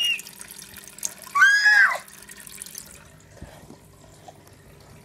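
Water trickling steadily in a terrapin tank, with a child's high voice calling out once about a second and a half in.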